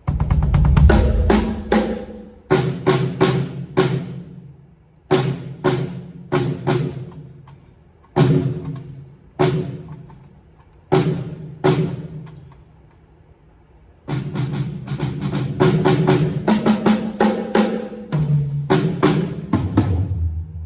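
Drum kit sound check on a TAMA Starclassic Bubinga kit: short fills of ringing, pitched drum strikes with snare and bass drum, played in groups with brief pauses between them. About two-thirds in, the playing turns into a longer, busier run.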